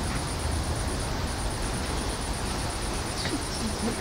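Outdoor ambience: a steady low rumble with a fast, regular high-pitched pulsing, about ten pulses a second, that breaks off briefly about a second in.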